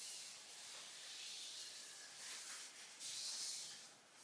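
A few soft swishes of a plastic hula hoop turning and rubbing through the hands.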